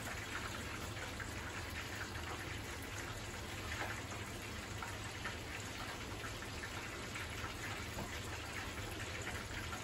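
Hot oil in a stovetop deep-fry pot with a wire strainer basket, sizzling and crackling steadily over a low hum.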